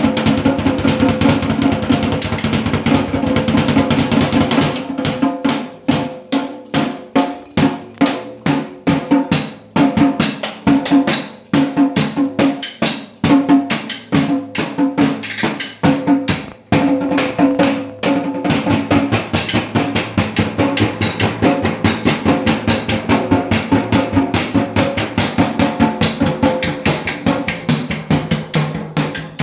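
Drums played with sticks: a fast drum roll for about five seconds, then separate strokes about two a second, then a sustained drum roll again from about eighteen seconds in.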